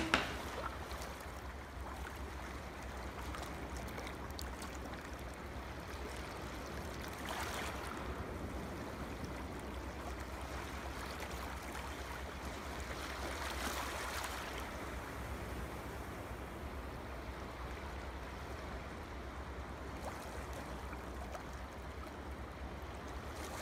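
Steady low hiss and hum of background room noise, with brief soft noisy swells about seven and thirteen seconds in, typical of card being handled and folded.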